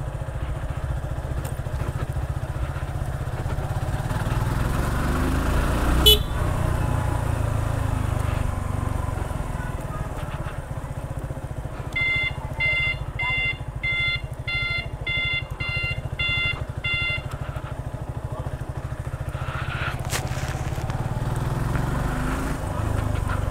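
Motorcycle engine running steadily while riding, with a sharp click about six seconds in. About halfway through, a short electronic beep repeats about ten times, two a second, for some five seconds.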